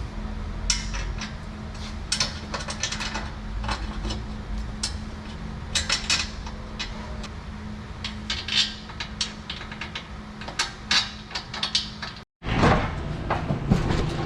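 Irregular metallic clinks, clicks and clanks of tools and exhaust pipework being handled and fitted, over a steady low hum.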